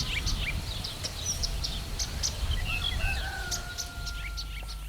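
Songbirds chirping outdoors, many short high chirps over a low rumble of outdoor noise, with a thin steady whistle for the last couple of seconds.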